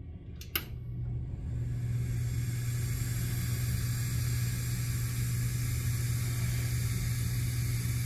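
A click as the group lever is engaged, then the La Marzocco Linea Micra espresso machine's vibratory pump running with a steady hum under a hiss, pushing water through the group into a Scace thermofilter.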